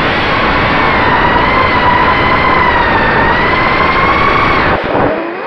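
An LS210 racing quadcopter's brushless motors and DAL 5045 props whining over rushing wind on the onboard camera, the pitch wavering as the throttle changes. Near the end the throttle drops off briefly: the whine sinks low and quieter, then climbs back up.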